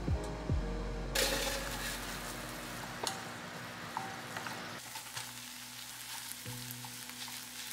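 Chicken and vegetable stir-fry sizzling in a nonstick pan, getting louder about a second in as the lid comes off. A spatula stirs and scrapes the food, with small clicks against the pan.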